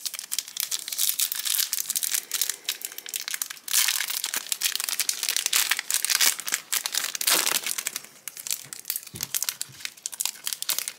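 Foil trading-card booster pack crinkling in the hands and being torn open across its crimped top: a continuous dense crackle, loudest in the middle.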